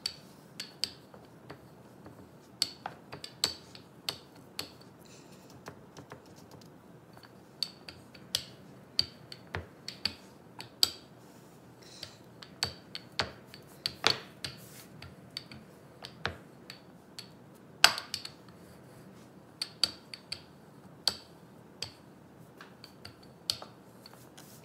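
Wooden rolling pin rolling dough out on a wooden board: irregular sharp clicks and knocks from the pin and its handles, with soft rubbing in between.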